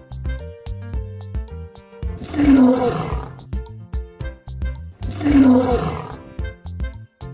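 Two roars of a big cat, each about a second long, about two and five seconds in, over bouncy children's background music with a steady beat.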